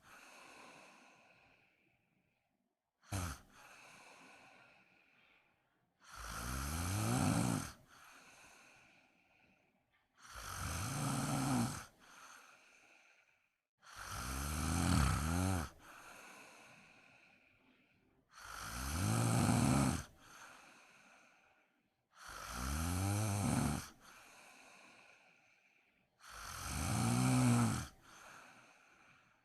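A woman snoring in her sleep: a loud snore about every four seconds, each one building up and cutting off sharply, then trailing into a softer breath out. There are about seven snores, the first a short one.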